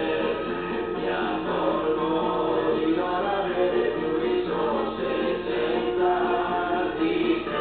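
A song playing, with several voices singing together over the music.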